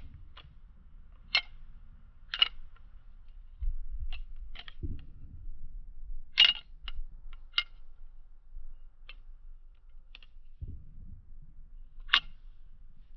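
Balisong (butterfly knife) being flipped, its handles clacking together in irregular sharp clicks, several of them louder, with soft low handling bumps in between.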